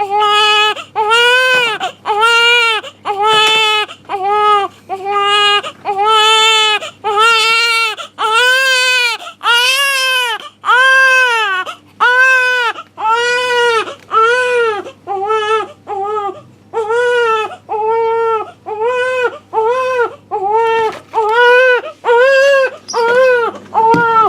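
Newborn baby crying hard and rhythmically: a steady run of short, high wails with a quick gasp between each. The father takes the distress for trapped wind that only needed a burp.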